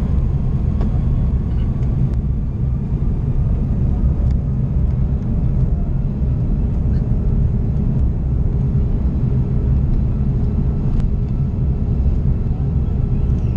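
Cabin noise of an Airbus A330 taxiing: a steady low rumble from the engines at low thrust and the rolling aircraft, with a few faint ticks.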